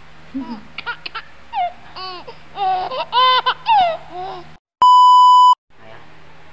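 High-pitched giggling in quick rising-and-falling bursts, then after a moment of silence a loud, steady electronic beep lasting under a second.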